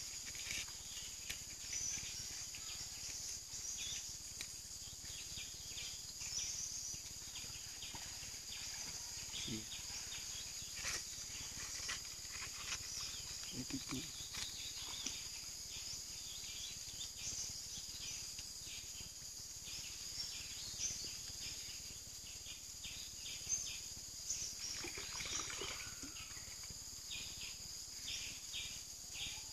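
Insect chorus: a steady high-pitched drone with many short chirps repeating over it.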